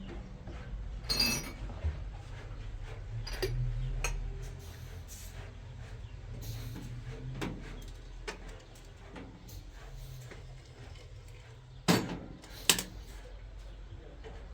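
Scattered light clicks and knocks over a low steady hum, then two sharp knocks less than a second apart near the end.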